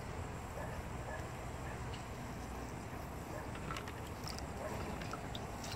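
Quiet outdoor background with a steady low rumble, and a few faint light clicks and taps as a knife and a gutted fish are handled on wooden deck planks.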